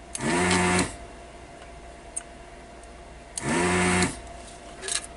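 A small electric motor whirs in two short bursts, each under a second long and about three seconds apart, spinning up quickly at the start of each. A shorter burst follows near the end.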